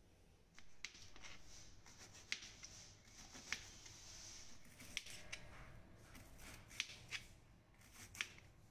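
Knife slicing bitter gourd into thin rounds on a plastic cutting board: a series of crisp, irregularly spaced cuts, starting about half a second in.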